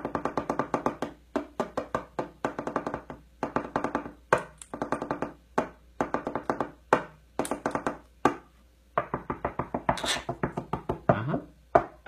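Monk parakeet's beak pecking rapidly at a wooden tabletop for grains of rice: quick runs of sharp taps, several a second, in bursts with short pauses between.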